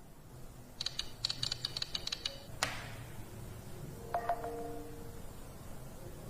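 A quick run of light clicks and taps, then one sharper click, followed a second and a half later by a few brief faint tones.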